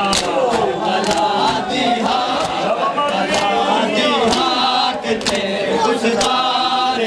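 Crowd of men chanting a noha together while beating their chests with open palms in unison (matam): sharp slaps about twice a second over the singing.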